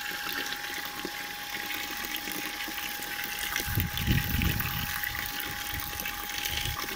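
Water gushing from a hose and splashing into a plastic tub as a newly driven Abyssinian well is pumped out for the first time, with a thin steady hum underneath. A brief low rumble comes about four seconds in.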